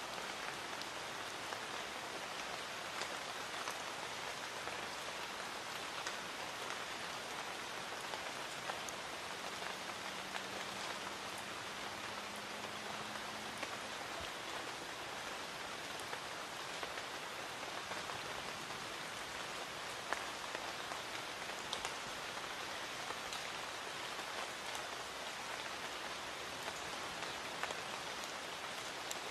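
Light rain falling steadily: an even hiss with single drops ticking here and there.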